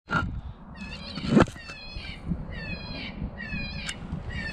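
Electronic predator caller playing an animal distress call: a string of short falling cries, about two a second, starting about a second in. A sharp knock about a second and a half in is the loudest sound.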